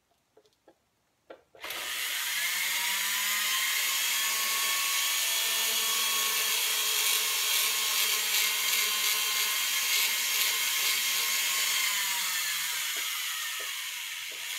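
Rotary tool's bur grinding the edge of a sterling silver piece. A few light clicks, then about a second and a half in the tool starts up and runs steadily with a high whine, its pitch easing down slightly near the end.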